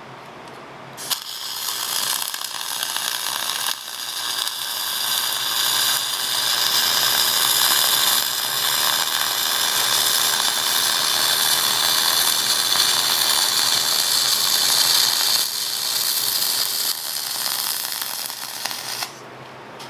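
Flux-core MIG welding with a Millermatic 251 running .045 flux-core wire: the arc crackles steadily as a bead is laid. It starts about a second in, dips briefly twice, and cuts off about a second before the end.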